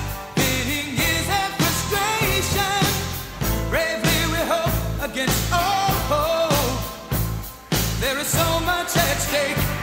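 Background song with a sung vocal melody over a heavy, steady bass beat.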